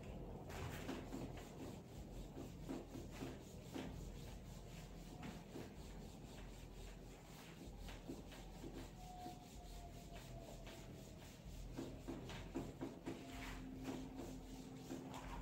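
Whiteboard eraser rubbing across a whiteboard in faint, irregular wiping strokes as the board is wiped clean.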